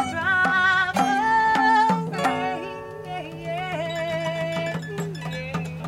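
Two acoustic guitars strumming with a voice singing wavering held notes, then a final strummed chord about two seconds in that rings on and slowly fades.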